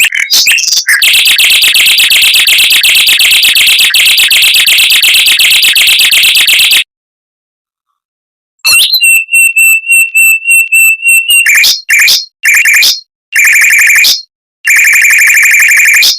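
Mockingbird singing: a long, very fast rolling trill lasting about six seconds. After a short break come a buzzy, pulsed steady note and then several short, rapid phrases.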